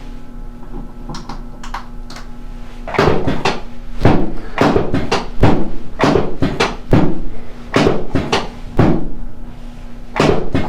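A run of loud, sharp thuds and knocks from chiropractic work on a patient on a treatment table, about a dozen at uneven half-second spacing, starting about three seconds in after a few faint ticks.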